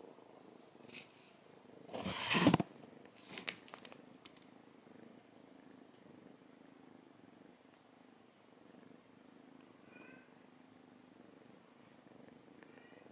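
Tabby kitten purring steadily while being stroked. About two seconds in there is a brief loud rustle, and a shorter one about a second later.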